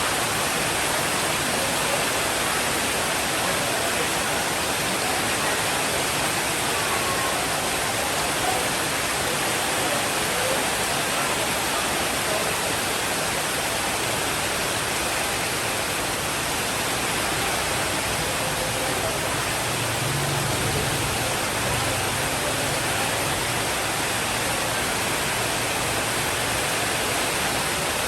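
Steady rain, a dense even hiss of falling water. About two-thirds of the way through, a soft low rumble of distant thunder swells briefly under it.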